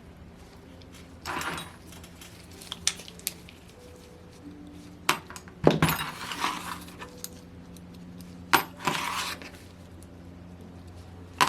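Small metal engine parts and hand tools clinking and clattering in scattered, irregular knocks and scrapes while a model glow engine is taken apart, over a faint steady hum.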